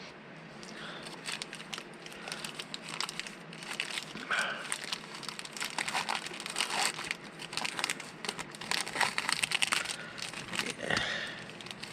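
Plastic snack-bar wrapper crinkling and crackling as it is handled, in a rapid run of small irregular crackles.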